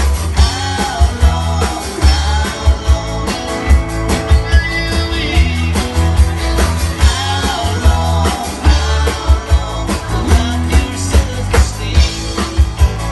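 Live rock band playing: a singer over drums, bass and guitar, with a steady, hard-hit drum beat.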